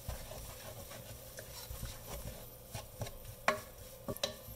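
Wooden spoon stirring and scraping crumbled potato and pea samosa filling around a stainless steel pan, with a couple of sharp knocks near the end.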